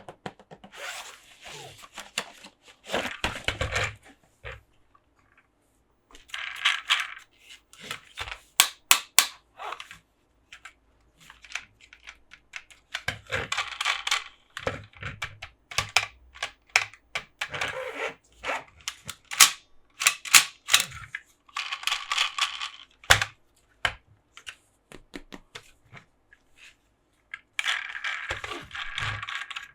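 Toy unboxing handling: bursts of crinkling plastic packaging alternating with sharp clicks and taps of hard plastic parts.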